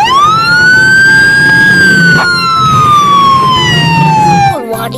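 Police car siren sounding one long wail: it rises sharply at the start, holds high briefly, then slides slowly down in pitch before breaking off near the end.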